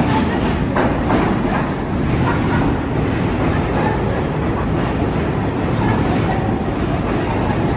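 New York City subway train running along the track with a steady rumble and wheels clicking over rail joints.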